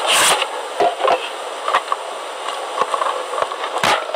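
Plastic DVD case being handled and opened: rubbing and light knocks of the plastic, a short loud scrape just after the start, and a sharp click near the end.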